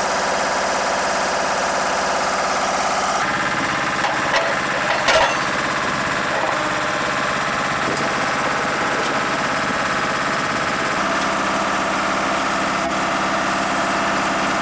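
Steady machinery drone with a whine over it, its tone changing at about three and eleven seconds in, with a few sharp metallic clicks about four to five seconds in.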